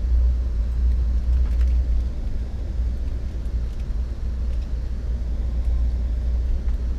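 Steady low rumble of an Amtrak passenger train heard from inside the carriage as it rolls slowly.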